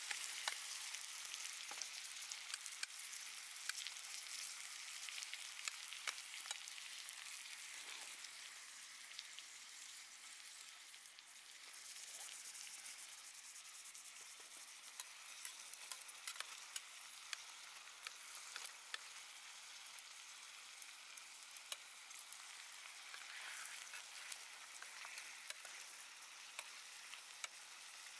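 Sizzling and crackling over a campfire: a steady high hiss dotted with frequent small sharp pops, easing a little in loudness over the first several seconds.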